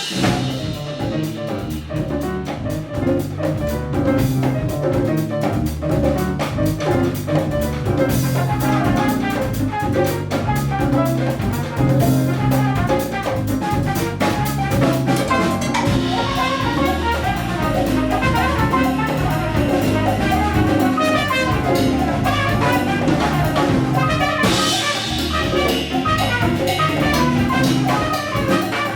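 Live Afro-Cuban jazz band playing at full volume: trumpet over piano, bass, drum kit and hand percussion, with brighter cymbal-like washes around midway and again near the end.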